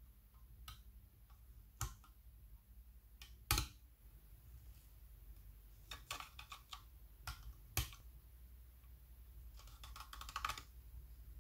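Sharp mechanical clicks from working the controls of a metal-cased military pocket signal lamp: its push-button switch, sliding lock and coloured-filter levers. The clicks come singly, with the loudest about three and a half seconds in and a quick rattle of clicks near the end.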